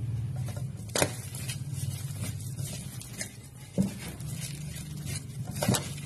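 Hands squeezing and kneading shredded banana heart (banana blossom) in a bowl, a wet rustling with three sharp knocks about one, four and nearly six seconds in, over a low steady hum.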